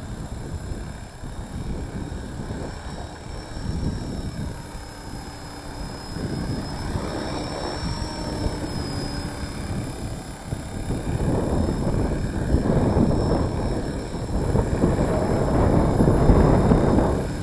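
Walkera V450D03 electric RC helicopter hovering, its motor and rotor giving a steady high whine. Strong wind buffets the microphone in gusts, loudest in the last few seconds.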